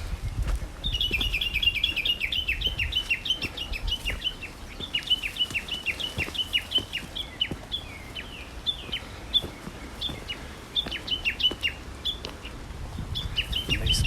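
A songbird singing fast runs of short, falling chirps, in several bursts with brief pauses, starting about a second in.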